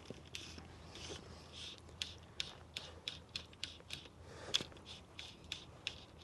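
Fly line being stripped in by hand to retrieve a streamer: a run of short sharp scratchy clicks, two or three a second, unevenly spaced.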